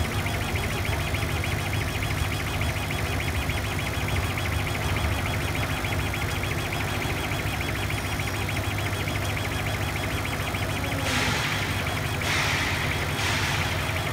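Gweike LC1390N CO2 laser engraver running as its head scans back and forth over plywood: a steady low hum with a fast buzz from the moving head. Near the end come a few hissing bursts, each about a second long.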